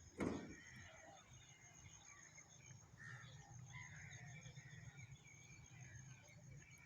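Faint birds chirping in short scattered calls over a steady thin high whine, with a single dull thump about a quarter second in.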